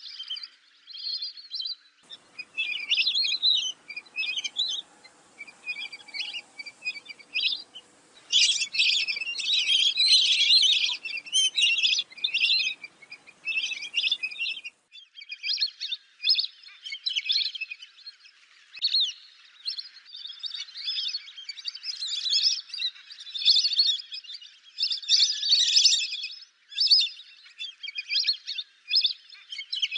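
Lesser whistling ducks calling: many shrill, high whistles overlapping in dense bursts with short gaps between them.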